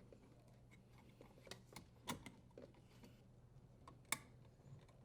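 Faint, scattered clicks of a hand tool driving the screw that secures the dishwasher's electrical terminal box to its support rail, the sharpest click about four seconds in, over a low steady hum.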